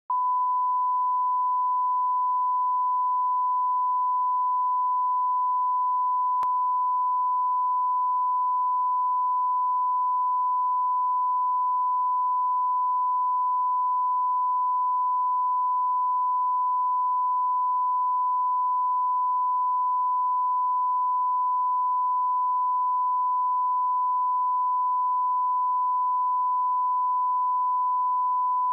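Broadcast line-up test tone sent with colour bars: one steady pure tone, unbroken and at an even level.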